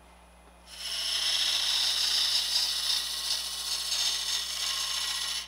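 Negative rake scraper cutting into spalted wood spinning on a lathe, a steady scraping noise as shavings come off. It starts about a second in and stops just before the end, over the faint hum of the lathe.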